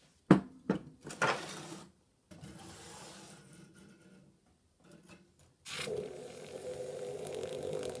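A few sharp clicks and knocks in the first second or so, the loudest just after the start. About two-thirds of the way in, a red-hot torch-fired bronze clay piece is dropped into a cup of water: a sudden steady hissing sizzle with fine crackling as the quench pops the black oxide off its surface.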